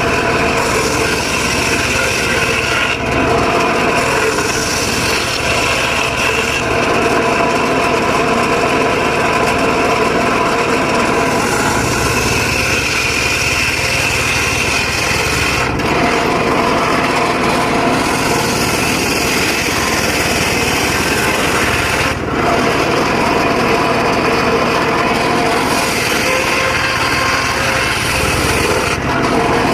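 Engine-driven circular saw running steadily and cutting dry teak wood, with a few brief dips in the sound.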